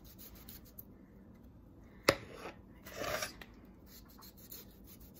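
Kitchen knife slicing a cucumber: a sharp knock about two seconds in, then a short scraping cut about a second later, with faint ticks between.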